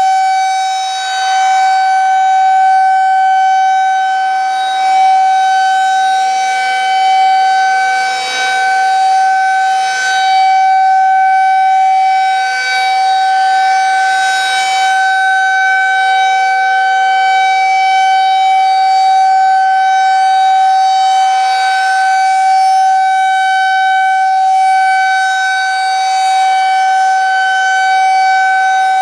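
Federal Signal 2001-SRN electromechanical warning siren sounding a steady alert tone at full speed. It holds one pitch with strong overtones, and its loudness sways a little as the rotating siren head turns.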